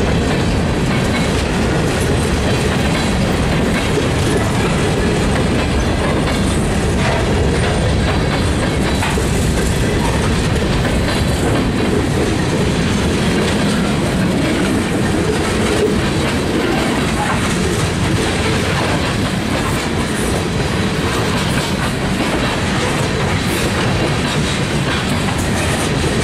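CSX freight train's boxcars and open-top gondolas rolling past at close range, their steel wheels clattering steadily on the rails.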